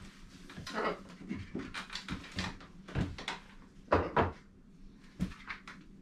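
Scattered knocks and handling sounds: a small wooden toy rowboat being fetched and set down on a wooden desk, with irregular short knocks, the loudest around three and four seconds in.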